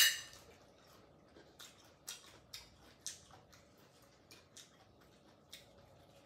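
Table and eating sounds: one sharp clink with a short ring at the start, then scattered soft clicks of chewing and of chopsticks on dishes.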